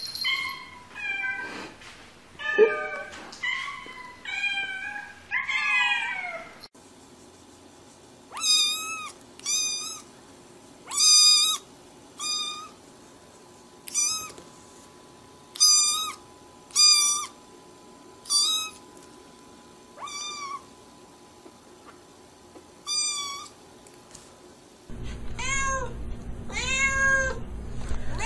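Domestic cats meowing in a string of separate clips. In the first seven seconds there is a quick run of calls gliding up and down in pitch. Then a black kitten gives high, short mews every second or two, and near the end an adult calico cat gives lower, repeated meows over a steady low hum.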